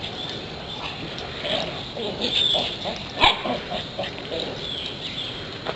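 Dogs playing, making short low vocal sounds, with a sharp knock a little over three seconds in.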